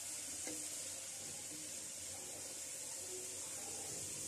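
Sliced onions and garlic sizzling in hot oil in an aluminium pot as they brown, stirred with a wooden spatula: a steady hiss.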